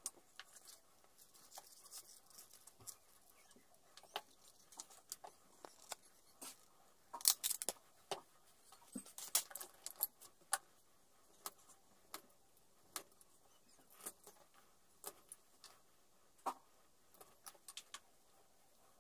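Small metal rivets clicking and clinking as they are handled from a loose pile on a wooden bench and fitted through holes in leather pieces. Scattered sharp clicks, with a busier run of louder clinks about seven to ten seconds in.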